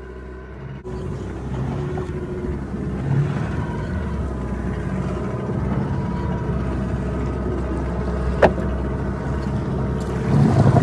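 A fishing boat's engine running steadily with water noise as the boat goes slowly astern while the gillnet is paid out. There are two sharp clicks, the first about eight and a half seconds in and another near the end.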